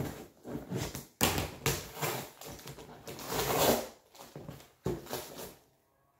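A taped cardboard box being torn and pulled open by hand: irregular rips, scrapes and rustles of packing tape and cardboard flaps, with a sharp rip about a second in and another near the end.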